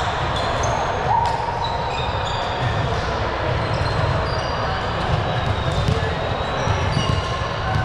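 Indoor volleyball game sounds in a gymnasium: scattered ball hits and short, high shoe squeaks on the court over a steady hall rumble, with indistinct players' voices.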